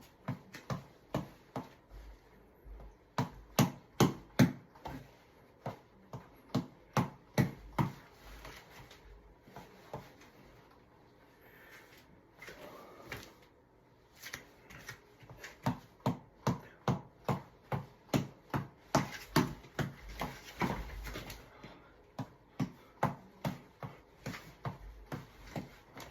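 Boxing reflex ball on an elastic cord being punched over and over, sharp knocks at about two to three a second. The run breaks off for a few seconds in the middle, then picks up again at the same pace.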